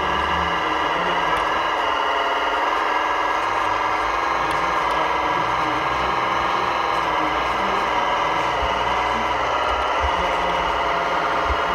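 Radio-controlled model truck running steadily, an unchanging engine-like drone with many steady high tones, with a few short low bumps near the end.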